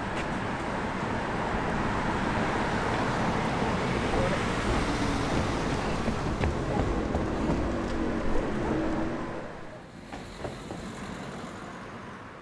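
Road traffic noise, a steady hiss of passing cars' tyres and engines, dropping much quieter about ten seconds in.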